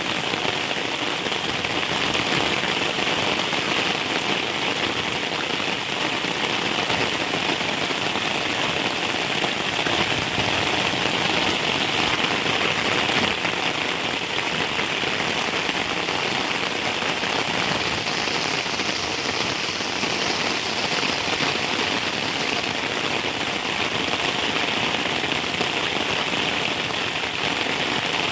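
Heavy rain falling steadily, a dense, even hiss of rain with no breaks.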